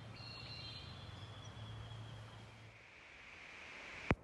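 Quiet outdoor ambience: faint high-pitched bird calls over a low steady hum, fading after about two and a half seconds. A single sharp click comes near the end.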